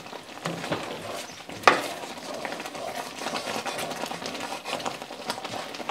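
Wooden spatula stirring a thick cream sauce with vegetables in a cast-iron skillet, scraping and tapping against the pan, with one sharper knock a little under two seconds in.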